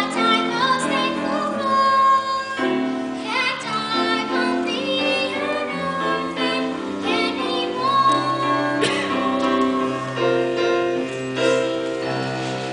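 A song sung by young voices with piano accompaniment.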